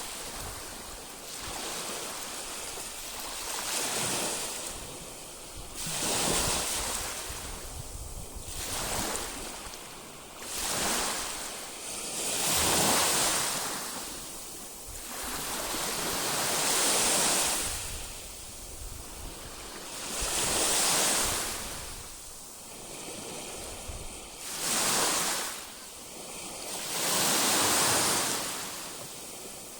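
Baltic Sea waves washing onto the shore, each one swelling into a hissing rush and falling away, about every two to four seconds. A low rumble of wind on the microphone runs underneath.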